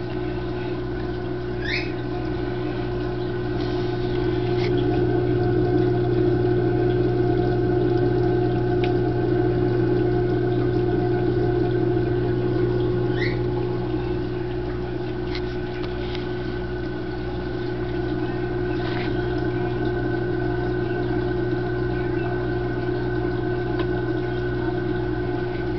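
AquaClear 802 aquarium power head running with a steady electric hum as it drives water up through a fluidized sand-bed filter, with a couple of faint short chirps.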